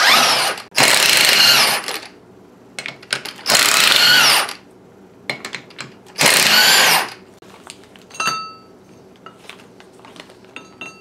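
Snap-on cordless impact wrench hammering out the ring gear bolts of a Honda K-series differential, in three bursts of about a second each. About eight seconds in there is a short metallic clink that rings briefly.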